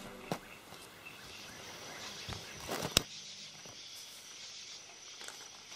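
Outdoor ambience by a reedy marsh: a faint steady high-pitched hum sets in about a second in, with a few sharp clicks, the loudest one just before three seconds in.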